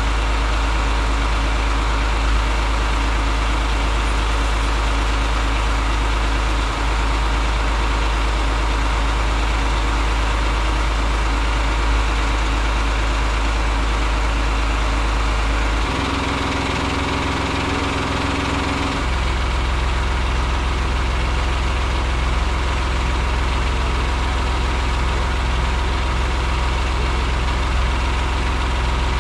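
Diesel engine of a concrete mixer truck running steadily at idle, a continuous low drone. Its pitch shifts for a few seconds just past the middle, then settles again.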